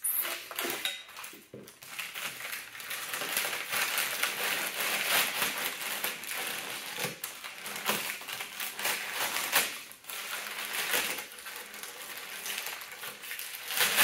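Brown kraft packing paper rustling, crinkling and tearing as it is stripped off a vacuum cleaner's handle and crumpled, with scattered sharp crackles.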